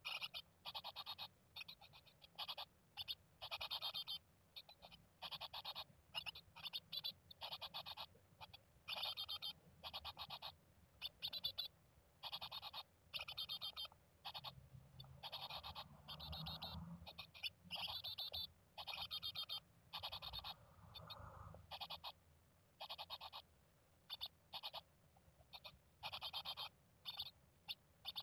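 Japanese tit nestlings in the nest box giving short, buzzy begging calls over and over, two or three a second, at close range inside the box.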